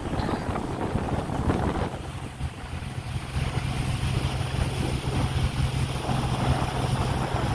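Motorboat engine running under way, with wind buffeting the microphone. A low steady hum comes up about two seconds in.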